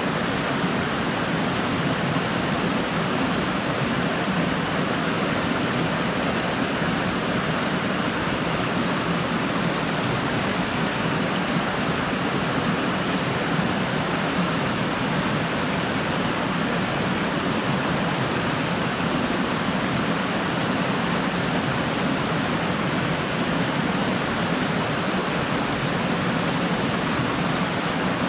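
Waterfall: water falling and splashing onto rocks, a steady, even rush with no breaks.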